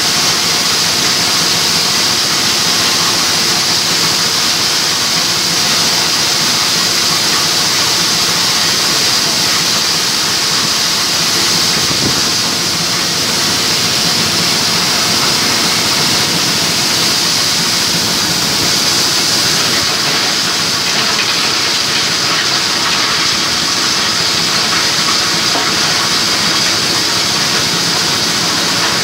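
Diesel-driven multipurpose chopper-grinder (hammer-mill type, 8 hp diesel) running steadily while grinding feed material such as corn cobs or husks into powder. It makes an even, loud mechanical rush with a strong high hiss.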